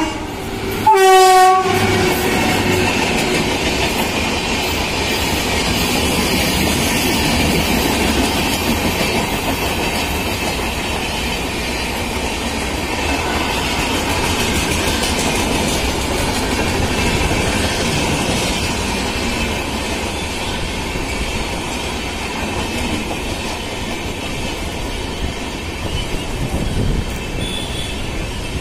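An Indian Railways electric locomotive sounds one short horn blast about a second in, the loudest sound here. Then its passenger coaches roll past at speed with a steady rumble, wheels clattering over the rail joints.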